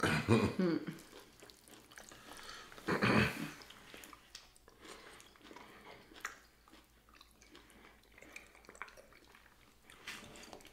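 A person clearing their throat with a short cough about three seconds in, after a brief voiced sound at the start. The rest is quiet eating: chewing on braised pig feet, with small clicks of a fork on a plate.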